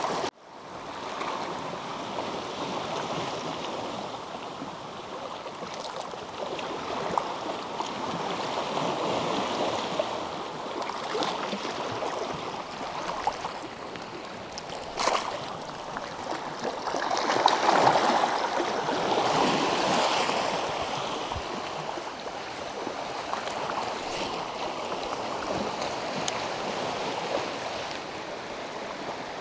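Sea water washing and lapping against shoreline rocks, a steady wash that swells louder for a few seconds in the middle, with one sharp click about halfway through.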